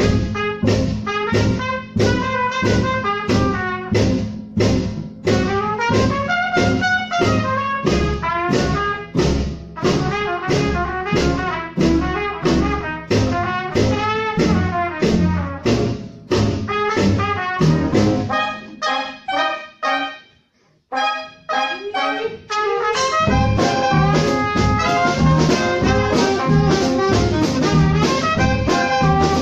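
Traditional jazz septet playing live: trumpet, trombone and soprano saxophone over piano, guitar, double bass and drums, with a steady swing beat. About twenty seconds in, the band stops briefly, then comes back in fuller.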